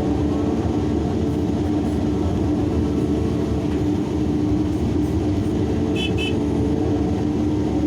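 Large hydraulic excavator's diesel engine running steadily under work while loading a truck, with a constant low hum. Two short high beeps sound about six seconds in.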